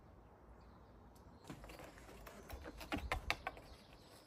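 A quick run of light clicks and taps, thickest and loudest about three seconds in, over a faint low rumble.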